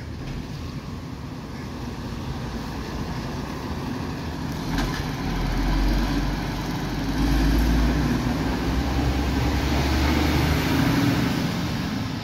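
MAN TGS 26.320 garbage compactor truck's inline-six diesel engine running as the truck drives past. The low engine note grows louder about five seconds in and eases off near the end.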